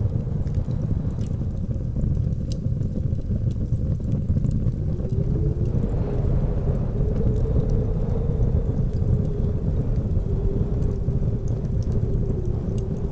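Steady low rumble of blizzard wind with a faint whistling tone that wavers up and down in pitch, over sparse small crackles of a wood fire.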